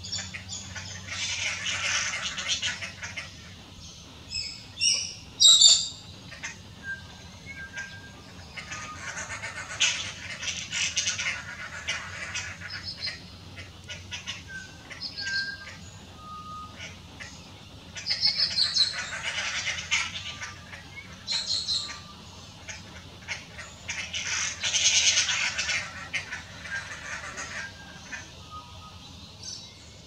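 Dollarbirds calling: four bouts of rapid chattering, each two to three seconds long, with a few short sharp notes between them.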